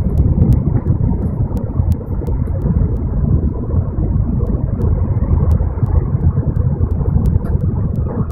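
Cabin noise inside an N700-series Shinkansen bullet train on the move: a steady, loud, low rumble of the running gear and wheels on the rails.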